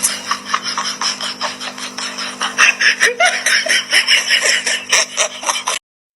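People laughing hard in quick, breathy bursts, over a steady hum in the first half. The sound cuts off abruptly near the end.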